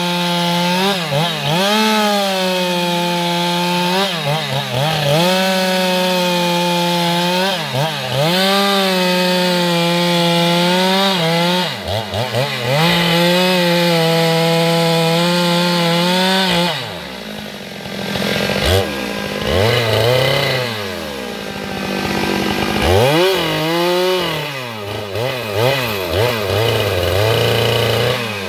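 Stihl MS 462 chainsaw at high revs rip-cutting lengthwise through a squared log. The pitch dips and recovers every couple of seconds as the chain bites into the wood. About two-thirds of the way through it drops off, then revs up and down several times before settling back into a steady cut.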